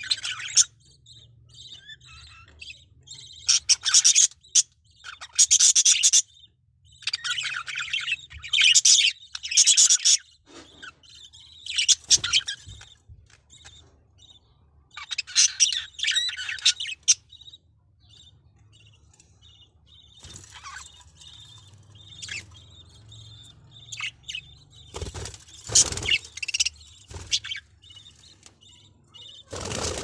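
Budgerigars chattering and chirping in bursts of a second or two, with short quiet gaps between them.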